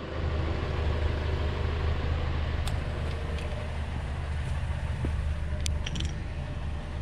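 A car engine idling with a steady low hum, with a couple of faint clicks.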